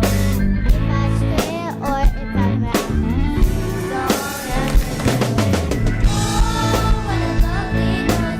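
Praise music with a drum kit keeping a steady beat over a bass line and a wavering melody line.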